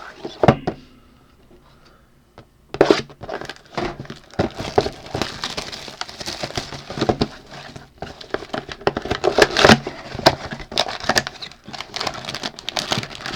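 Plastic wrap and cardboard of a sealed trading-card box being handled and torn open: irregular crinkling and rustling with small clicks and taps. A sharp knock comes just after the start, then a short lull before the crinkling picks up.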